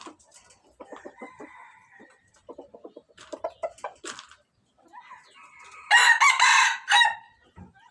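Rooster making short, soft clucking calls, then crowing once, loudly, for about a second near the end.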